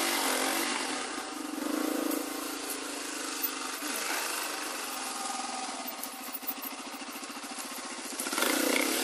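Off-road motorcycle engine running at low revs with a fast even beat, picking up with throttle about two seconds in and again near the end. A few short knocks come through along the way.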